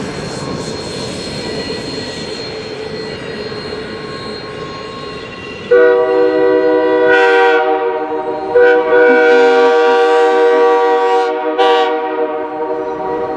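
Steam locomotive whistle sounding a chord in long blasts with short breaks, starting about halfway in, over a steady rushing noise from the train.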